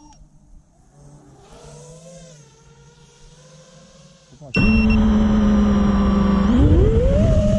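A vehicle engine revving faintly in the distance, rising and falling; about four and a half seconds in a much louder engine cuts in close by, runs steady, then revs up near the end.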